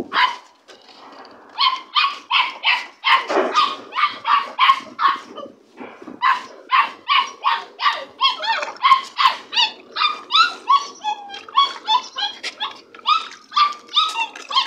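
Staffordshire bull terrier puppies yelping and barking over and over in short, high-pitched calls, two to three a second, with brief lulls about a second in and around the middle.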